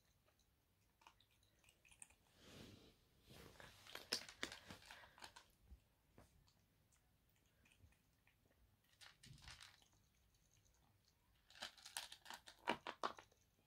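A kitten chewing dry cat kibble, a rapid run of small crunches. The crunches come in two bouts, one starting about two seconds in and one near the end, with only a few scattered crunches between.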